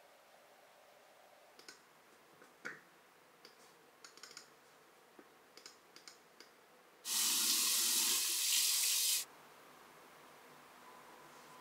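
Water running from a tap for about two seconds, starting and stopping abruptly, after a run of faint small clicks and taps.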